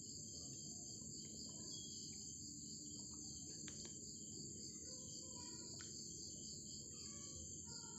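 Crickets chirping steadily in the background, a faint high continuous trill, over a low background hiss.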